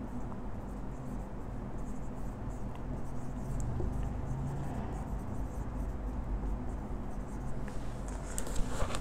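Marker pen writing on a whiteboard: faint scraping strokes over a steady low room hum, a little stronger about halfway through and again near the end.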